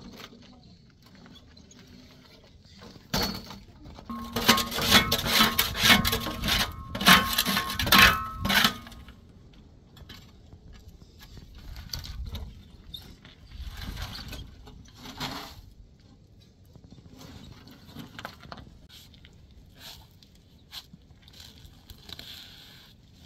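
A metal shovel scraping and clattering against a steel wheelbarrow's tray as it is loaded with sand and gravel. A loud run of metallic scraping with a ringing tone starts about three seconds in and lasts several seconds, followed by quieter separate scoops.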